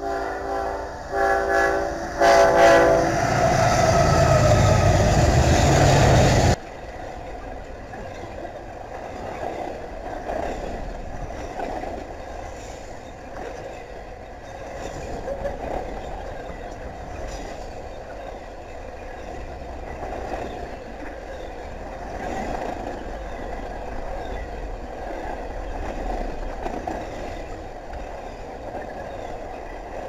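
Diesel freight locomotive horn sounding in several short blasts, then the lead locomotives pass close by, loud, until the sound cuts off suddenly about six seconds in. After that, double-stack container cars roll past with a steady rumble and wheel clatter.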